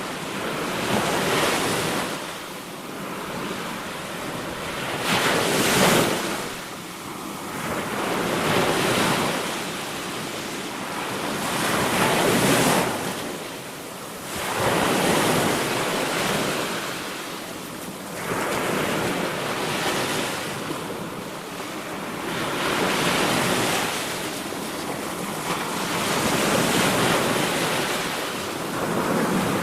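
Sea waves surging in, a rush of surf that swells and fades again every three to four seconds.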